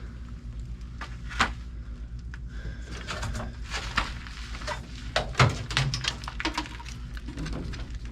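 Scattered small clicks and knocks of hands and a screwdriver working wires into a furnace control board's terminal strip, over a steady low hum.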